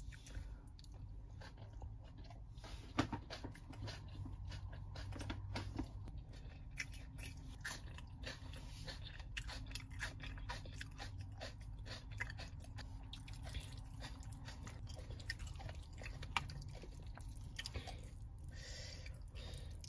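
Faint close-up chewing and mouth sounds of someone eating fried fish and raw onion-vegetable salad: a continuous run of small wet clicks and light crunches, with a couple of sharper ticks about 3 seconds in and near 16 seconds.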